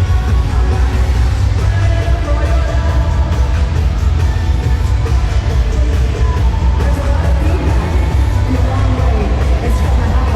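Loud band music with a heavy, steady bass and several instruments sounding together, played live at a sound check.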